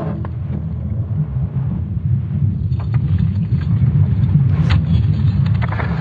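Sonification of Earth's magnetic field made from ESA Swarm satellite measurements: a deep, steady rumble that gradually swells, with a few faint crackles from about halfway.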